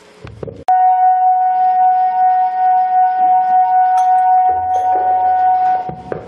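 Conch shell (shankh) blown in one long, loud, steady note lasting about five seconds, starting abruptly and cutting off near the end.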